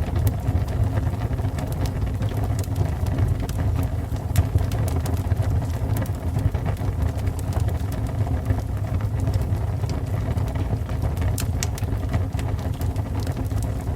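Fire burning: a steady low rumble with sharp crackles and pops at uneven intervals.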